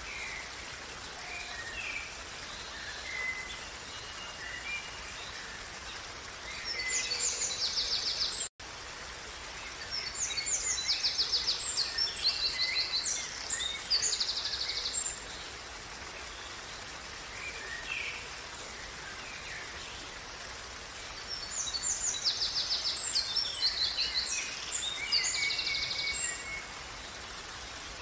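Running water of a small stream as a steady hiss, with a songbird singing three long bouts of rapid, chattering high trills, the middle bout the longest. All sound cuts out for an instant about eight and a half seconds in.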